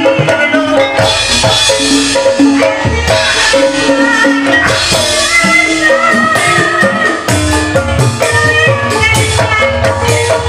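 Javanese gamelan music: bronze gongs and bonang-type metallophones play a repeating melody over kendang drum strokes, with a high wavering melody line above.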